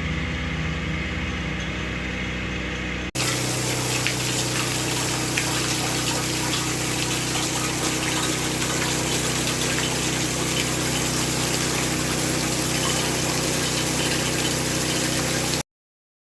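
Hurricane wind and driving rain: a steady rushing noise over a steady low hum. It jumps louder about three seconds in and cuts off abruptly near the end.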